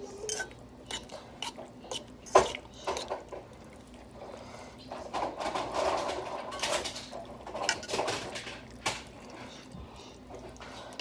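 A utensil stirring thick chili in a cooking pot: sharp knocks against the pot, the loudest about two seconds in, with a longer stretch of wet stirring around the middle and a few more knocks near the end.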